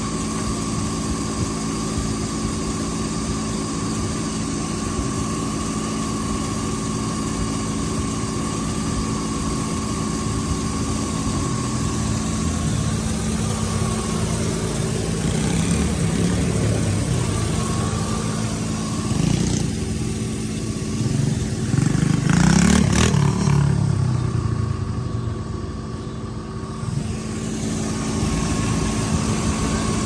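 Pickup truck's Vortec engine idling steadily, a constant hum with a thin whine over it. About three-quarters of the way through there is a louder rustling bump.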